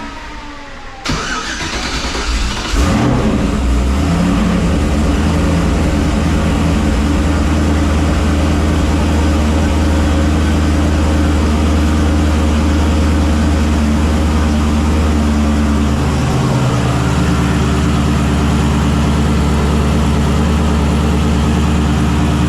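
Turbocharged Camaro Z28 V8, newly fitted with an S494 turbo, cranked on the starter about a second in and catching near three seconds, then running at a steady idle. The idle note shifts lower about sixteen seconds in.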